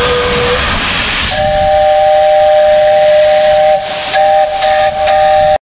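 Metre-gauge steam locomotive hissing steam as it moves. About a second in, its steam whistle sounds a loud, steady two-note chord, broken briefly a few times near the end.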